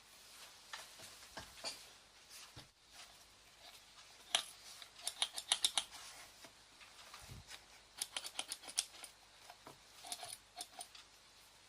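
Small, sharp clicks and taps in clusters, with quick runs of several clicks in a row around the middle and later on.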